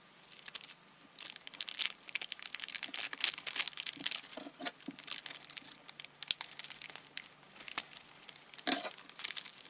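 Plastic tarpaulin crinkling as it is crumpled and folded by hand, in quick irregular crackles, with scissors snipping into the folded sheet near the end.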